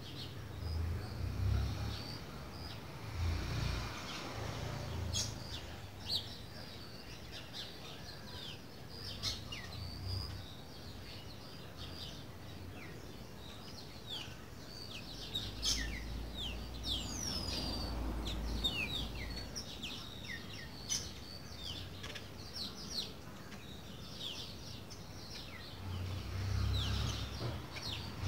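Birds chirping: many short, high, quick downward-sliding chirps scattered throughout, over low rumbles that come and go.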